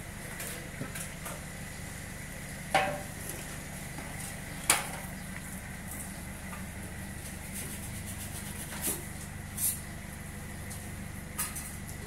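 Workshop background: a steady low hum and a thin high whine, with a few scattered sharp knocks and clinks. The loudest knock comes about five seconds in, and others come around three, nine, ten and eleven seconds in.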